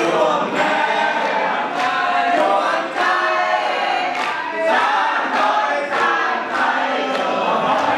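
A group of people singing together loudly in unison, with regular hand claps along to the beat.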